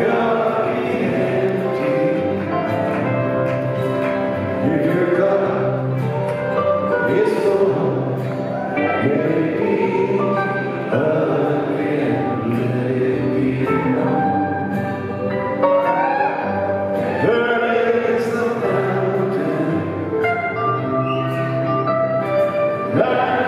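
Live band playing a song on acoustic and electric guitars, with a sung vocal line over it.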